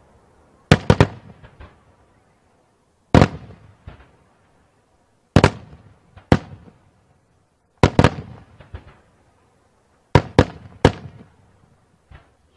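Daytime fireworks: aerial shells bursting in sharp bangs, singly and in quick pairs and triples about two seconds apart. Each bang has a short echoing tail, and the last one, near the end, is fainter.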